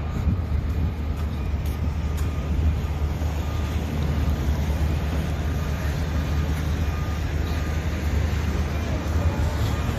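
Downtown street ambience: a steady low rumble of road traffic.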